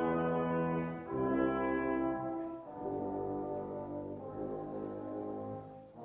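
Slow classical background music of long held chords, changing about a second in and again near the middle, and softening near the end.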